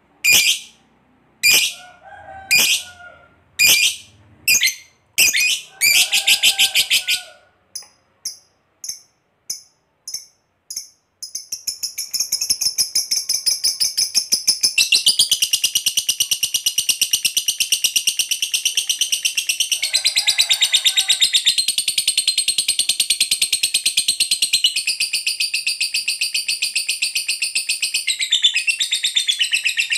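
Lovebird calling: sharp high chirps about once a second, a few softer short chips, then from about eleven seconds in an unbroken rapid, shrill chatter that grows stronger and carries on. This long chattering trill is the "ngekek panjang" that lovebird keepers prize.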